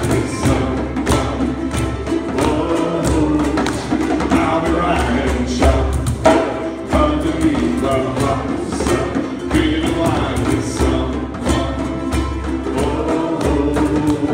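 A group of ukuleles strumming a steady, upbeat rhythm, with many voices singing together and a pulsing low bass beneath.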